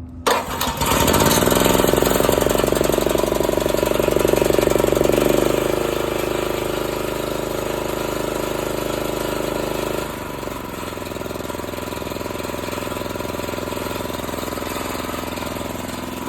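Honda GX240 8 hp single-cylinder engine on a generator pulled with its recoil starter, catching on the first pull and running up to speed within about a second. The engine note then steps down twice, about five and ten seconds in, settling into a steady idle with no load.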